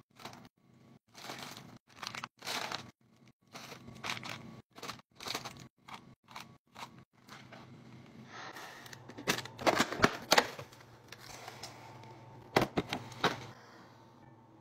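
Plastic candy-bar wrappers crinkling and rustling as wrapped candy is packed piece by piece into a turntable snack organizer. Short crinkles come about twice a second at first, then denser rustling with a few sharp clicks in the second half.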